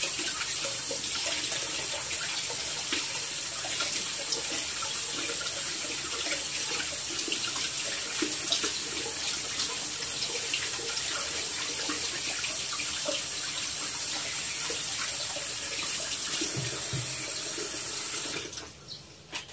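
Tap water running steadily into a kitchen sink, shut off about a second before the end, followed by a brief knock.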